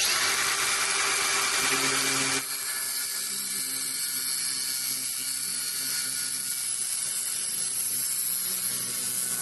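A power tool cutting a slot down to the threads of a rusted steel bike freewheel. It is a steady grinding whine with a loud hiss that starts suddenly, and the tone drops a little and changes about two and a half seconds in.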